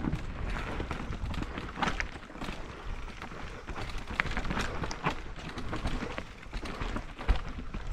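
Mountain bike rolling fast down a dirt and stone singletrack: a steady rush of tyre and riding noise with a low rumble, broken by frequent short clicks and rattles from the bike over the rough ground.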